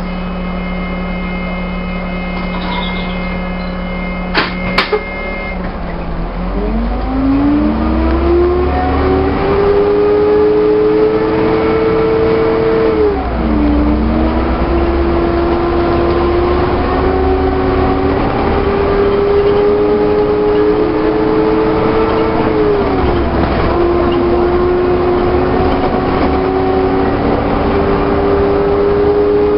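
Volvo double-decker bus with Alexander body: the diesel engine idles with a steady high tone over it, a couple of clunks come about five seconds in, then the bus pulls away. The engine note climbs, drops at a gear change near the middle, climbs again, and drops at a second upshift near the end before rising once more.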